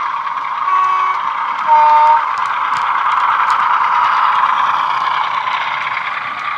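Model Hymek diesel-hydraulic locomotive's DCC sound decoder playing its engine sound through the loco's small speaker, running steadily and swelling as the model passes closest before easing off. A two-note horn sounds: a short toot about a second in, then a louder, slightly lower toot around two seconds in.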